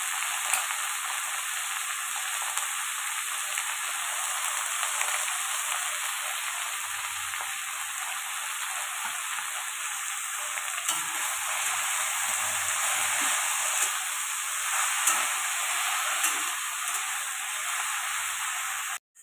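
Chopped jute leaves sizzling steadily in hot oil in a wok, stirred with a spatula. The sound cuts off abruptly at the very end.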